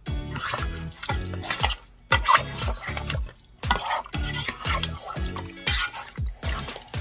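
Raw oxtail pieces being stirred with a spatula in a wet nonstick pot: wet squishing and scraping in bursts. Background music with a steady beat runs underneath.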